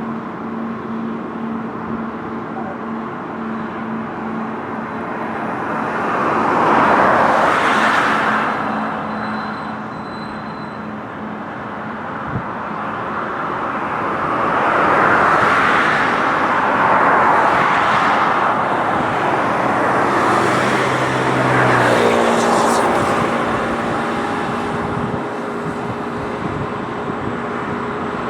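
Road traffic: a steady background of vehicles with several cars passing close by, each swelling up and fading away, the loudest a quarter of the way in and again around the middle.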